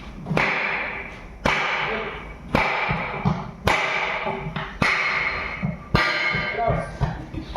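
Hammer blows on a truck wheel during a tyre repair: six heavy strikes about a second apart, each ringing out metallically.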